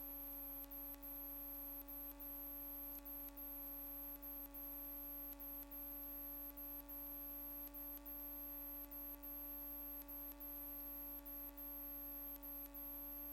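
Faint, steady electrical hum made of a few held tones, with a thin high whine, on the aircraft's radio and intercom audio line between transmissions. No voice is on the line.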